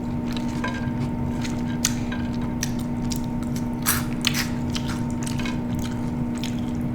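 Close-miked chewing and biting of food, with scattered sharp mouth clicks and smacks, over a steady low hum.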